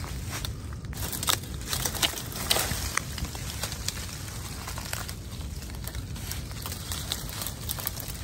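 Dry twigs and leaves crackling and snapping in irregular clicks, most of them in the first few seconds, over a low steady rumble.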